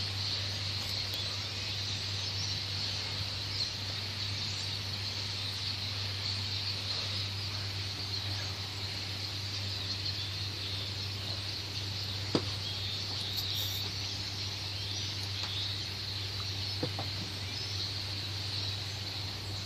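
Steady outdoor background: a constant low hum under a constant high, hissing band, with a few faint clicks.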